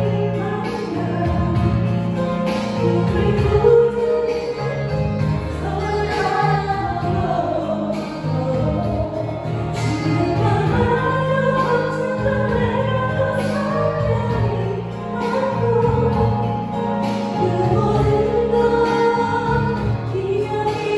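Two women singing a Korean ballad as a duet into handheld microphones, amplified over an instrumental accompaniment.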